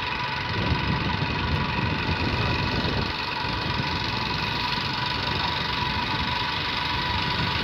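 Vehicle engine and road noise while driving.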